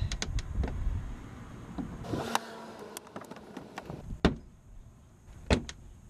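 A plastic wheel-well fender liner being pried at with a screwdriver and pulled by hand to free it from its retaining clips: scraping and clicking of plastic, with two sharp clicks about four and five and a half seconds in.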